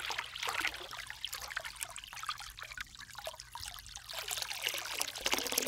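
Splashing, trickling water, louder at first, easing off in the middle and building again near the end.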